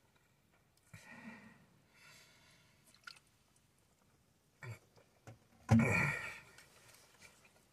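A man chewing and swallowing a mouthful of burger, with a short voiced grunt about a second in and a louder, longer throaty voiced sound from behind closed lips near six seconds.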